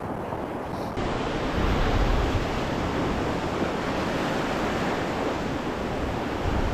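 Sea surf breaking and washing up the beach, with wind buffeting the microphone; the noise grows louder about a second in.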